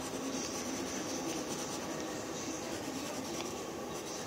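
Pencil sketching on paper: a continuous run of scratchy strokes.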